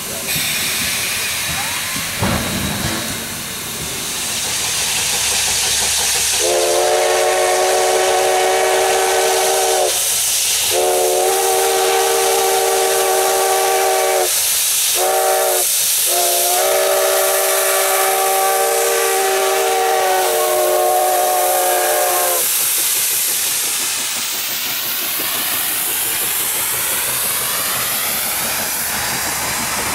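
Steam locomotive chime whistle blowing a chord: two long blasts, two short toots, then one long held blast, over the steady steam hiss and working exhaust of narrow-gauge 2-8-2 steam locomotives. Near the end the passing train's steady rumble takes over.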